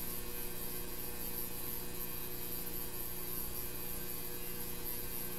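Steady low electrical hum over a faint hiss.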